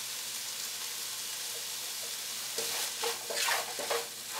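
Onion-tomato masala sizzling steadily in a pot as the tomatoes cook down. After about two and a half seconds, a wooden spoon starts stirring and scraping through it in irregular strokes.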